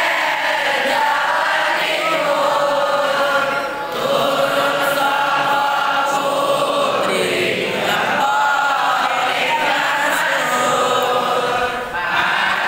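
A group of young male voices chanting sholawat pujian, Islamic devotional praise, in unison without instruments. The phrases are long and held, with brief breath pauses about four seconds in and near the end.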